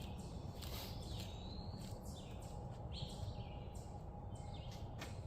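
Birds chirping faintly over a steady low outdoor rumble, with a few light clicks.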